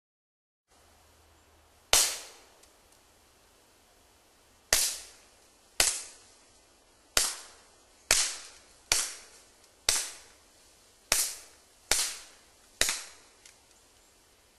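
A suppressed Walther P22 .22 LR pistol with a Gemtech Outback II can fires subsonic rounds, ten shots in all. Each shot is a short, sharp pop that dies away quickly, at an uneven pace, faster in the middle of the string.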